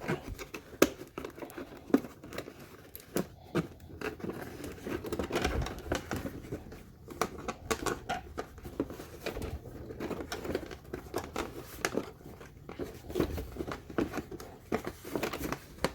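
Toy car packaging being handled by hand: cardboard and plastic crinkling and rustling, with many scattered sharp clicks and knocks as the RC car is worked loose from its box.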